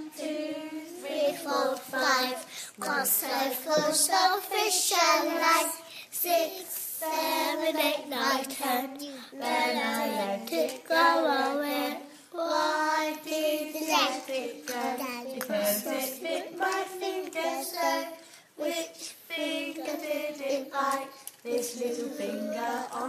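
Young children singing a song together, in sung phrases with short pauses between them.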